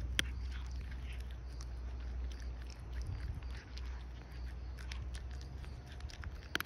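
A domestic cat crunching dry kibble eaten from a hand: a quick, irregular run of crisp crunches, over a steady low rumble.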